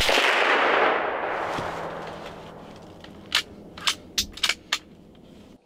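A single .22 rifle shot: a sudden loud crack whose echo trails off over about three seconds. About three and a half seconds in, five sharp knocks follow in quick succession.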